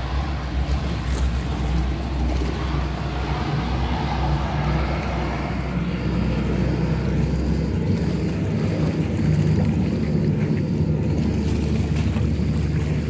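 Steady engine drone of a distant amphibious firefighting aircraft skimming the sea to scoop water, mixed with wind noise on the microphone. A low rumble drops away about eight seconds in.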